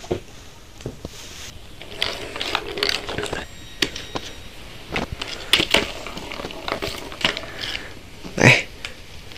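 Plastic balls clicking and rattling in a three-tier plastic ball-track cat toy as kittens bat at them, in irregular clusters of clicks, with one louder bump about eight and a half seconds in.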